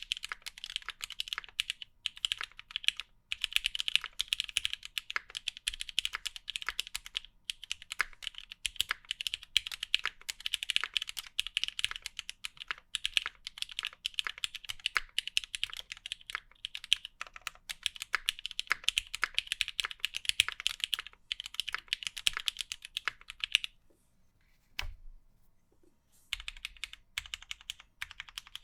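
Steady, fast typing on a custom Monokei Kei R2 mechanical keyboard with lubed NOS Cherry MX Black linear switches in a 50A o-ring mount, a rapid stream of keystroke clacks. Near the end the typing stops for about two seconds, with a single key strike in the gap, then resumes.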